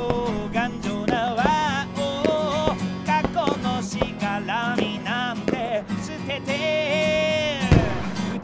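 A Japanese-language song: a voice singing a melody over steady backing music, holding one long note late on, with a single sharp bang near the end.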